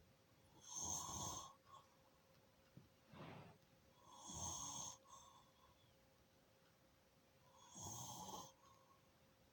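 Snoring: three snores about three and a half seconds apart, each lasting under a second, with a fainter breath between the first two.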